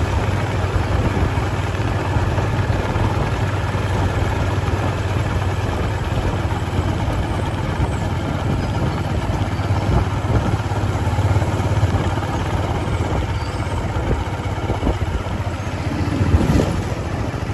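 A vehicle's engine running steadily with road and wind noise, heard from on board as it drives along. There is a brief louder swell near the end.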